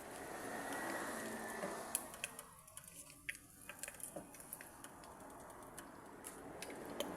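Chicken frying in hot oil: a steady sizzle with irregular sharp crackling pops. The sizzle thins out for a second or so about two and a half seconds in.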